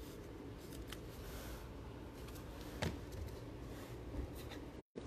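Faint handling of trading cards and their cardboard box on a table: light rustling and scraping, with a sharp tap about three seconds in.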